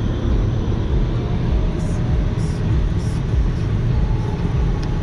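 Steady low rumble of road and engine noise inside a car's cabin cruising at highway speed.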